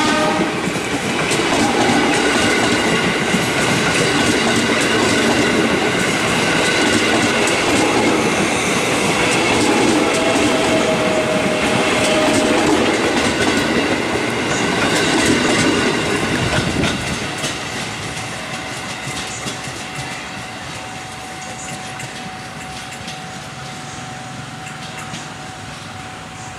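JR 205 series electric commuter train running past close by: a loud, steady rumble and clatter of wheels over the rails as the cars go by. About two-thirds of the way through it drops away to a quieter steady sound as the last car passes.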